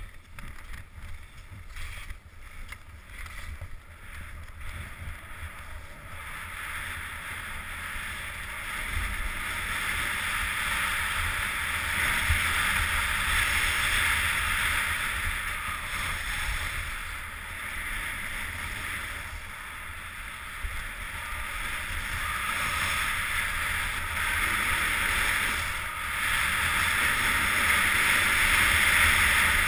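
Skis hissing and scraping over packed snow on a downhill run, with wind rumbling on the microphone. The hiss swells louder after the first several seconds.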